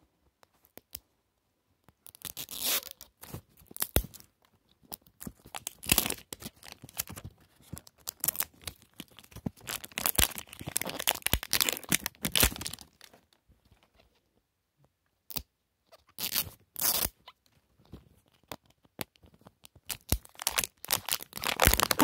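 Thin plastic wrap being torn and peeled off a Mini Brands capsule ball, crinkling in irregular bursts, with a quiet gap of a couple of seconds past the middle.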